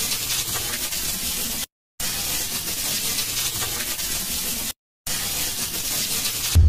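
Hissing, crackling noise effect that cuts off abruptly twice for a brief silence and starts again, with a deep, loud boom starting just before the end.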